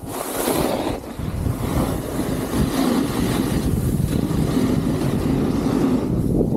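Snowboard sliding and scraping over groomed snow, with wind rumbling on the microphone as the rider gets moving. The noise builds about a second in, then holds steady.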